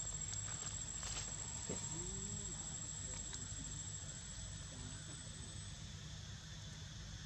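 A steady, high-pitched insect trill that stops about six seconds in, over a low rumble, with a faint short rising-and-falling call about two seconds in.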